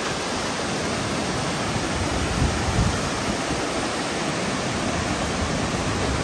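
Steady roar of Kegon Falls, the waterfall's falling water heard as an even, unbroken rush.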